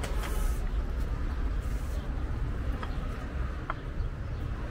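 Street ambience of a city sidewalk: a steady low rumble of traffic, with two short high chirps a little after the middle.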